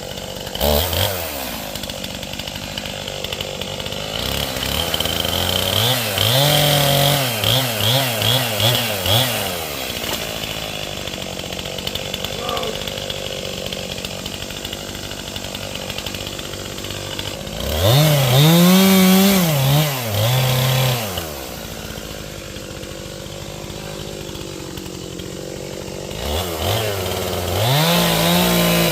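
Two-stroke chainsaw running, its engine rising and falling in pitch: several quick throttle blips about six to nine seconds in, a long high rev around eighteen to twenty-one seconds, and another rev near the end, with lower steady running in between.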